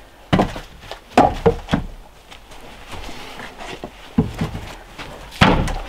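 Several separate knocks and thuds, the loudest one near the end.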